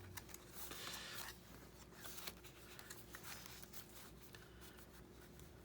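Faint rustling of paper and light clicks as paper pieces are handled and positioned.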